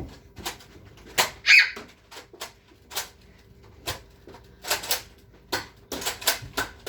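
A string of sharp clicks and knocks at uneven intervals, coming more often toward the end, with one brief high squeak about a second and a half in.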